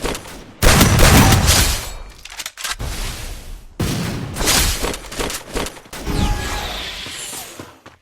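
Video game combat sounds: several loud bursts of gunfire with crashing, shattering noise, each dying away over a second or two.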